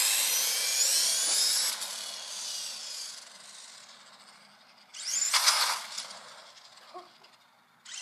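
Traxxas E-Revo's brushless motor whining high as the RC truck speeds off, running on two battery packs joined by a series connector. The whine slides up and down in pitch and fades as it drives away, then a second short burst of throttle comes about five seconds in.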